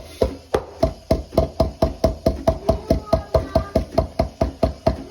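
Espresso portafilter being knocked again and again against a knock box to loosen the spent coffee puck: a steady run of sharp knocks, about three or four a second, each with a short ring.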